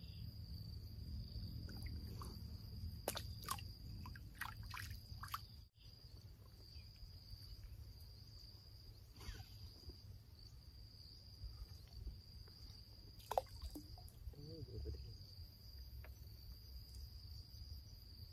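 Insects, likely crickets, trilling steadily at one high pitch over a low wind rumble on the microphone. A few short clicks and knocks come about three to five seconds in and again near the middle and about two-thirds through.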